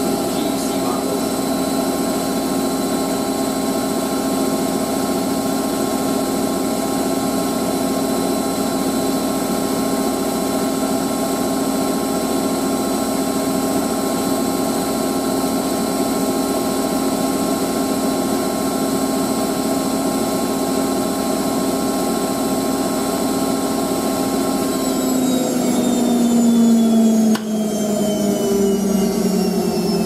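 Hotpoint 9530 Electronic 1000 Plus washing machine spinning at full speed: a steady, high motor whine. Near the end the whine falls in pitch as the drum winds down at the end of the spin, with a single click partway through the slowdown.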